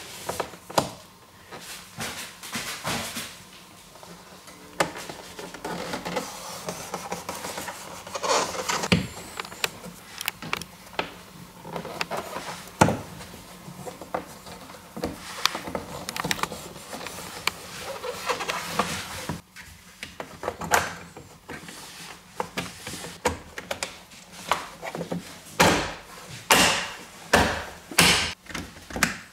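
Hands working a car's plastic interior trim and fabric headliner: rustling, rubbing and small clicks as a power cable is pushed in behind the trim. Then a run of about five sharp knocks in the last few seconds as the trim is pressed and tapped back into place.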